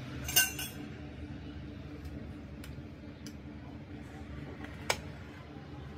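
A metal spoon clinking against a ceramic bowl: a quick rattle of clinks about half a second in, a few light ticks, and one sharp clink near the end, over a low steady hum.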